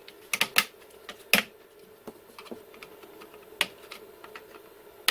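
Plastic cable drag-chain links on a CNC router clicking as they are pried open one after another: a quick cluster of sharp clicks in the first second and a half, then scattered lighter ticks, over a faint steady hum.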